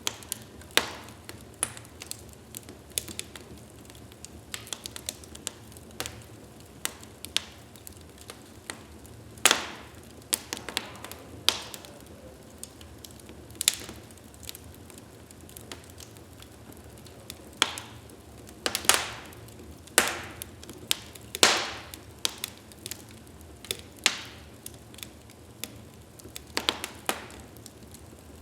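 Wood fire crackling in a fireplace: irregular sharp pops and snaps, a handful of them much louder, over a soft steady hiss.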